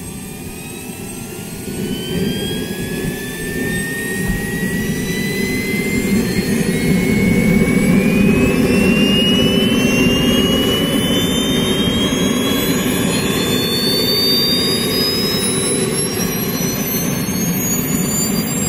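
Kingtech model jet turbine in an RC F-18 spooling up. A whine climbs steadily in pitch over a rushing roar, and the sound grows louder over the first several seconds, then holds.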